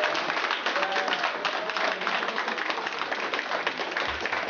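Small crowd applauding: a dense, irregular patter of many hands clapping, with a brief call or whistle about a second in.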